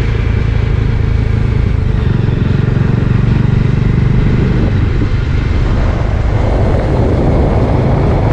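Motorcycle engine running steadily while riding, with wind rushing over the microphone that grows stronger near the end.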